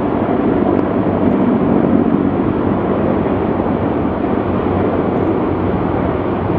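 A formation of large military helicopters flying past, with steady rotor and engine noise and a low, fast pulsing underneath.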